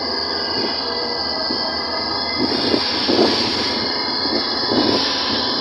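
Ride noise from the open back of a moving jeep: a steady engine and road din with a high hiss, and a few knocks and rattles as it jolts over the road from about halfway through.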